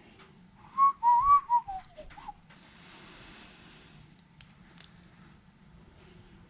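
A short whistled phrase of a few wavering notes that slides down at the end. It is followed by a steady hiss of nearly two seconds and a couple of small clicks.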